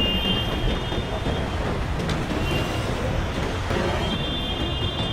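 Loud, steady rumbling rush of tsunami floodwater, with faint high steady tones near the start and again from about four seconds in.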